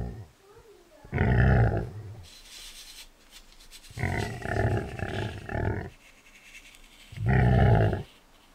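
Recorded big-cat roars, five in all: one about a second in, three shorter ones close together around the middle, and one more near the end.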